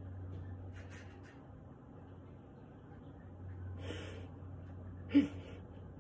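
Close-up breathing and soft handling sounds as fingers stroke a rooster's face, with a few short breathy hisses and one short, sharp grunt-like sound with a falling pitch about five seconds in.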